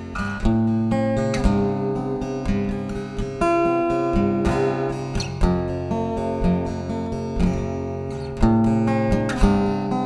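Yamaha FGX830C acoustic-electric guitar fingerpicked through a Yamaha THR30IIA acoustic amp set to a long reverb, heard straight from the amp's line output. Plucked notes and chords ring on and overlap, with new notes every second or so.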